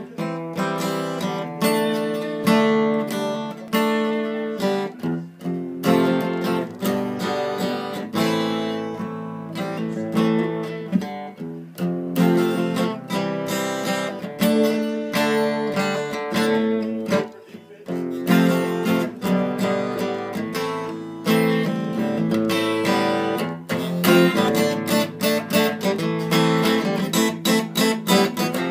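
Steel-string acoustic guitar played solo, chords strummed in a steady rhythm, with a brief break about seventeen seconds in.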